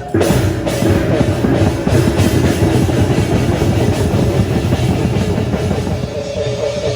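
Music with fast, heavy drumming that starts suddenly just after the beginning and keeps up a dense run of strokes.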